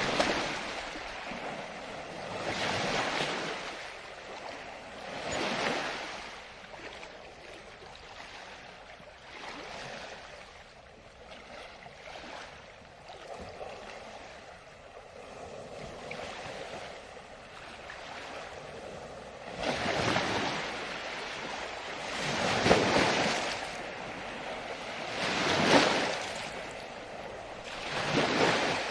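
Ocean waves breaking and washing ashore in repeated surges every few seconds, a quieter lull in the middle followed by several stronger breakers near the end.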